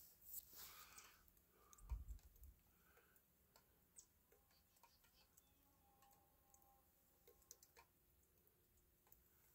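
Near silence with faint scattered clicks and ticks, and one low thump about two seconds in.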